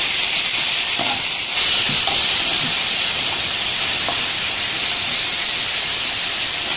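Chopped onions sizzling steadily in hot oil in a kadai. The sizzle grows a little louder about a second and a half in.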